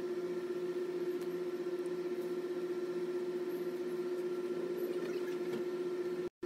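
A steady machine hum at one fixed low pitch over light background hiss. It cuts out for an instant near the end.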